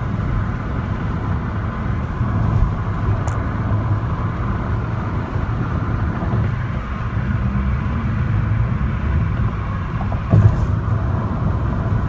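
Car engine and road noise heard from inside a moving vehicle, a steady low rumble. A brief knock about ten seconds in.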